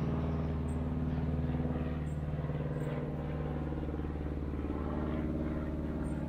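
Car driving at a steady speed: a steady low engine and road hum that does not rise or fall.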